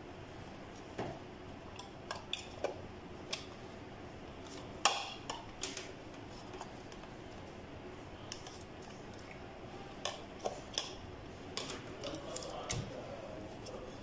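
Scattered light clicks and knocks of a plastic electric coffee grinder housing and its base being handled and turned over during disassembly, the loudest about five seconds in.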